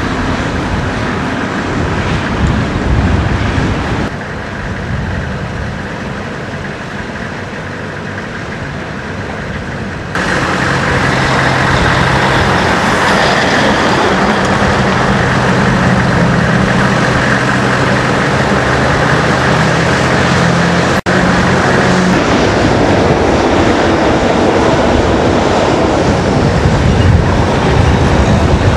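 Diesel trucks and earthmoving machinery running. At first it is a quieter rumble; about ten seconds in, a closer, louder diesel engine takes over with a steady low drone, and after a brief dropout the heavy vehicle noise carries on.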